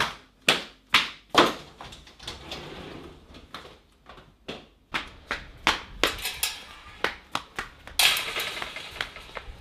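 Footsteps on a hard floor, a few sharp knocks about half a second apart, then scattered clicks and knocks. Near the end comes a louder, noisy clatter lasting about a second.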